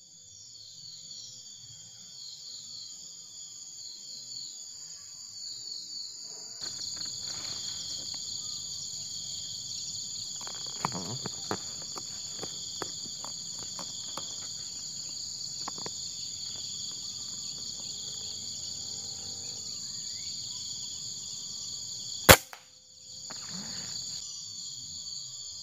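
Steady high-pitched buzzing of forest insects, with a single sharp air rifle shot a few seconds before the end.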